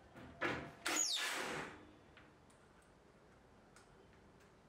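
Cordless drill driver run in short bursts to drive a threaded insert into an MDF board: a brief burst about half a second in, then a longer one about a second in whose pitch falls away as the motor slows to a stop. A few small ticks follow.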